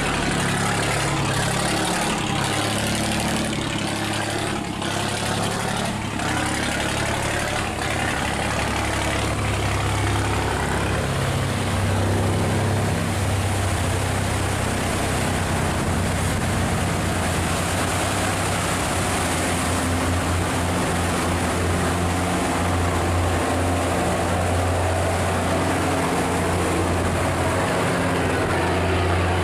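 Boat diesel engines running steadily as sand barges push through close by, over water churning and rushing in their wash.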